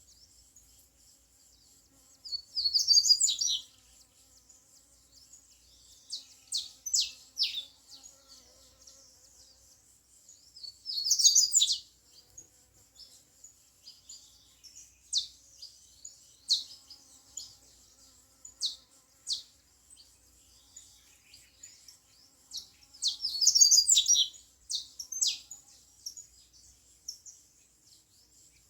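Double-collared seedeater (papa-capim) singing: three short, high twittering phrases of about a second each, near the start, around the middle and near the end, with sharp single chip notes scattered between them.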